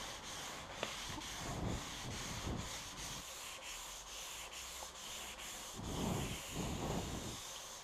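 Hand sanding of a New Guinea walnut tabletop with a small piece of sandpaper: quick, regular back-and-forth rubbing strokes, several a second.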